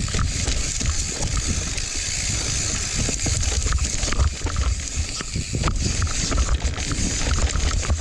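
Mountain bike rolling fast down a dry, loose dirt trail: wind rumbling on the microphone, tyres crunching over the loose surface and the bike rattling with many short clicks over roots and bumps.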